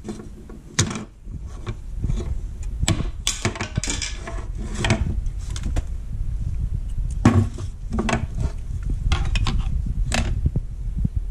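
Stihl chainsaw parts being handled on a workbench: irregular clicks, knocks and clatters of hard plastic and metal as the chain-brake hand guards and the saw body are picked up, turned and set down, over a steady low rumble.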